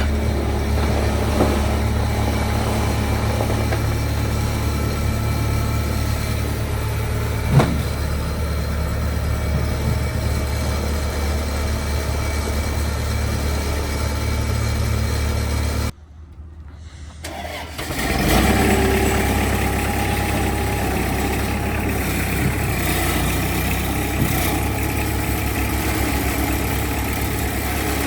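Skid steer's four-cylinder Kubota diesel idling steadily while it warms up after a cold start. About two-thirds of the way through the sound drops away suddenly for a couple of seconds, then the engine comes back running with a busier, slightly louder note.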